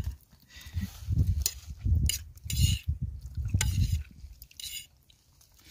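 Short clicks and rustles of a takeaway noodle container and utensils being handled while eating, over irregular bursts of low rumble on the microphone; it all dies down after about four seconds.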